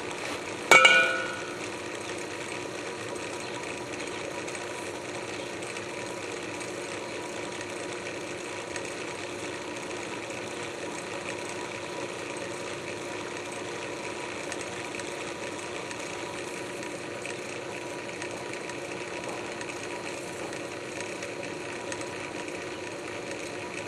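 Drill press running as a dough mixer, its steel hook turning bread dough in a rotating propane-tank bowl: a steady mechanical hum with a few steady tones. About a second in, a single sharp metallic clank rings briefly.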